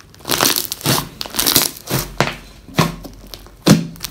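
Large mass of pink glue slime being stretched and pressed by hand, giving a run of crackling, crinkling squishes. There are about six bursts, the loudest a little before the end.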